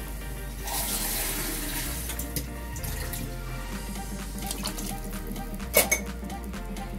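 Water poured from a cup into a pot of rice: a splashing pour of about two seconds, starting a little under a second in, over background music. A short sharp knock near the end.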